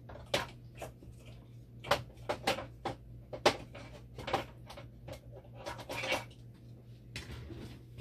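Irregular clicks, knocks and short scrapes of hard plastic and metal parts being handled as a component is fitted back into the open machine, over a low steady hum.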